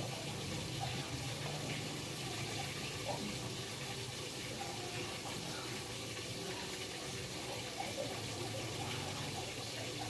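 Steady rushing background noise with a low hum underneath and no distinct events.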